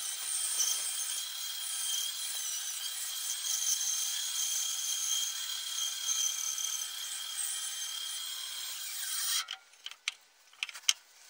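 Bandsaw running and cutting through a wooden block, a steady high whine with the hiss of the blade in the wood. It cuts off suddenly about nine seconds in, followed by a few light knocks as the cut wooden pieces are handled.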